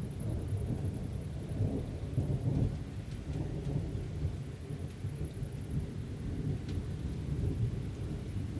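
Thunder rolling from an approaching thunderstorm: a deep, uneven rumble that dies back from a louder peak just before and keeps grumbling on.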